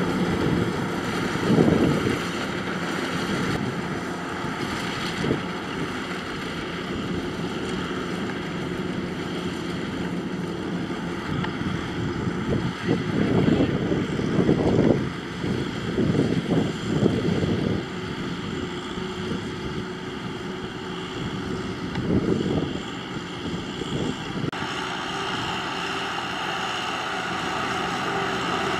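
Kubota M6040SU tractor's diesel engine running steadily as the tractor works through deep mud ruts in a paddy field. The noise swells louder a few times along the way.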